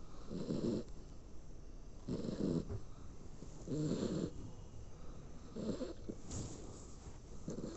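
Dog snoring in its sleep: about five low snores, one every one and a half to two seconds.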